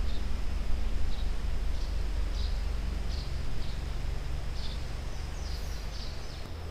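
Creekside ambience: short high bird chirps every second or so, coming quicker near the end, over a steady high insect drone, with a low rumble underneath.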